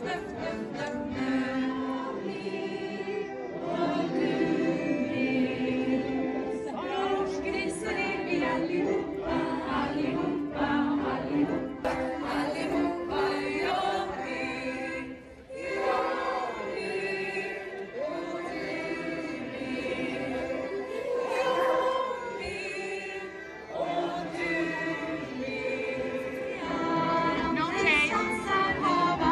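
Many voices singing together with music, a group song at a Midsummer maypole gathering.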